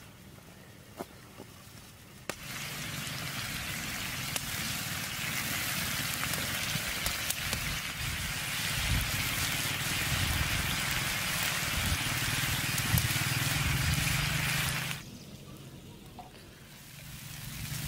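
Lamb liver and vegetables sizzling on a large flat iron pan over a wood fire. After a quieter start with a few sharp clicks, the sizzling comes in suddenly about two seconds in. It stops abruptly about three seconds before the end and builds again just before the end.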